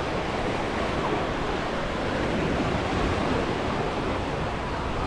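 Waves washing onto a sandy beach in a steady surf hiss, with wind buffeting the microphone.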